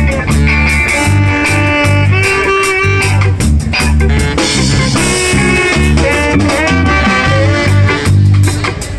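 Live ska band playing an instrumental passage: held brass notes over a pulsing bass line and drums.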